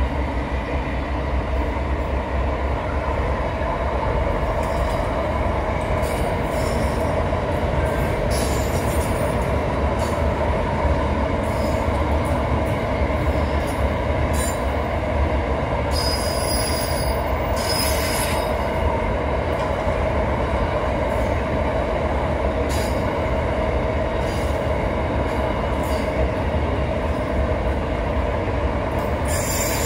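Container freight train wagons rolling steadily past on the rails, a continuous rumble and clatter. Brief high-pitched wheel squeals come through several times.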